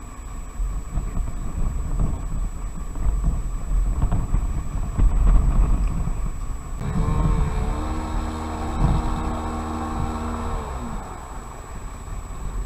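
Low rumbling with wind on the microphone, then about seven seconds in a dirt bike's engine revs up and holds a steady high note for about four seconds before dropping away.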